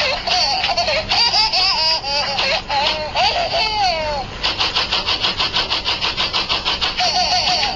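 High-pitched voices squealing and laughing, their pitch swooping up and down. Just past the middle this gives way to a rapid, even pulsing of about five or six short beats a second, and the squealing voices return near the end.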